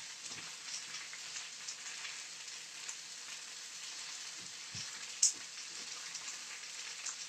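Chicken pieces browning in a hot oiled pan, sizzling steadily with small crackles, and one sharp click about five seconds in.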